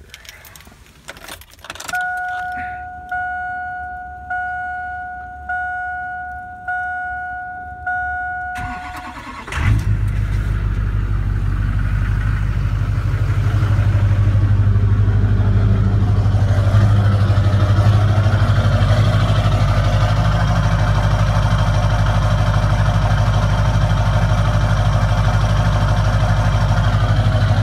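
A two-tone chime from the truck's cab sounds six times, about once a second. About nine seconds in, a 2002 Chevrolet Silverado's Duramax LB7 6.6-litre V8 turbodiesel cranks briefly and fires on a cold start. It settles into a steady idle through its straight-piped 4-inch exhaust, growing louder a few seconds later.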